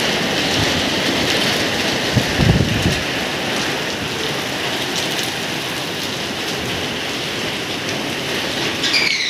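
Heavy typhoon rain pouring steadily, with strong wind gusting on the microphone and rumbling low in the first three seconds.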